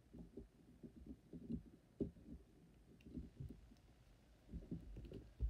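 Faint handling noise of a dental scaler and gloved fingers on a plastic typodont: soft low knocks and rubbing, with one sharper tap about two seconds in and heavier thumps near the end.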